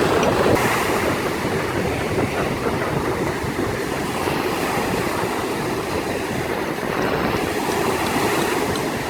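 Large sea waves breaking on the shore, making a continuous rush of surf.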